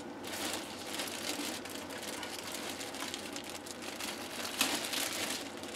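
Plastic bag and foam packaging sheet rustling and crinkling as they are handled and pulled off, with a louder crinkle about four and a half seconds in.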